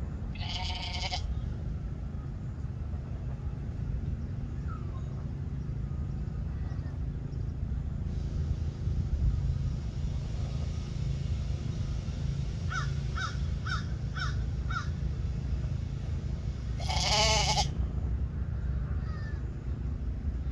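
A few short, harsh animal calls over a steady low rumble: one about half a second in, a quick run of five about two-thirds of the way through, and the loudest one near the end.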